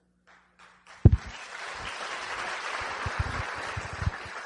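Audience applause that breaks out about a second in with a loud thump and then continues as a steady patter of many hands clapping.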